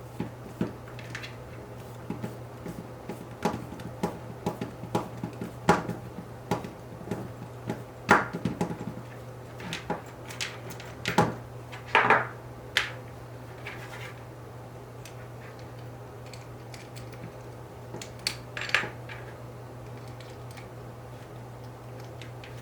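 Small plastic kit parts and tools clicking, tapping and clattering as they are handled and fitted during hand assembly of an RC car, in irregular bursts with a few louder knocks in the middle.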